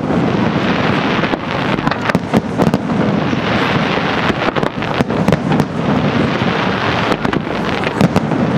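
Aerial fireworks display: a continuous barrage of shells launching and bursting, with many sharp bangs and cracks over a dense rumble, thickening in clusters about a second and a half in and again near the end.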